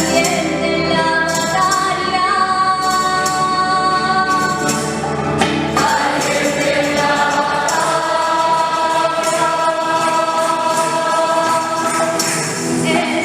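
Guatemalan choir singing a hymn in long held notes, with a tambourine shaking along.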